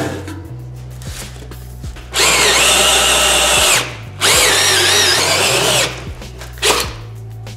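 Cordless drill driving a hole saw through 3 mm aluminium plate, in two runs of about a second and a half each with a brief pause between, cutting with a grinding whine. A short sharp knock follows near the end.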